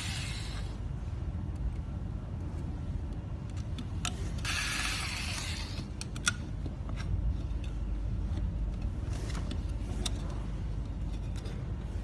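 Steady low workshop hum with scattered small clicks and knocks from parts and a handheld tool being handled on the bench. A brief hiss comes about four and a half seconds in.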